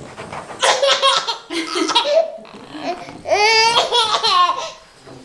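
A toddler laughing in several short bursts, then one long, high-pitched pulsing laugh about three seconds in.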